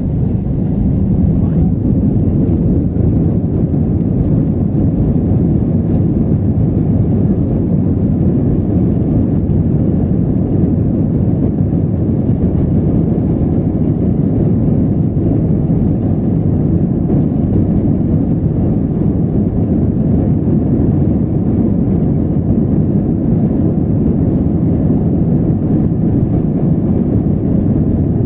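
Cabin noise inside an Airbus A320 in flight: a steady, loud, low rumble of the jet engines and the airflow over the fuselage, unchanging throughout.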